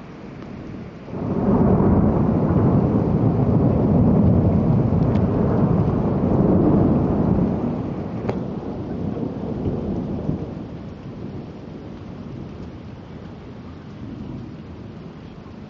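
Thunder over steady rain: a rumble breaks in about a second in, stays loud for several seconds, then rolls away and slowly fades.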